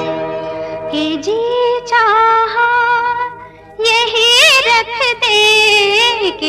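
Hindi film song: a high female voice sings long, ornamented notes with vibrato and gliding pitch, with a short pause a little past the middle.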